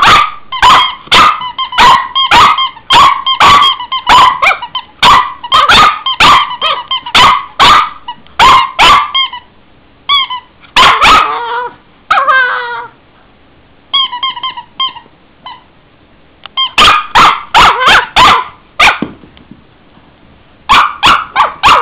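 Cavalier King Charles Spaniel barking in play over a toy: a fast run of sharp barks, about two a second, for the first nine seconds. After a pause with a few quieter sounds, it breaks into another run of barks near the end.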